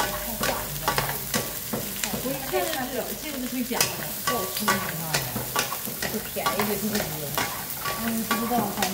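Vienna sausages and sliced garlic sizzling in a wok while being stirred and tossed with two wooden spatulas: irregular clacks and scrapes of wood on the pan, several a second, over a steady frying sizzle.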